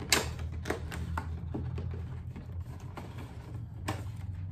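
Small cardboard box being handled and opened by hand: scattered sharp taps, clicks and scrapes of card, the loudest right at the start and another just before the end, over a steady low hum.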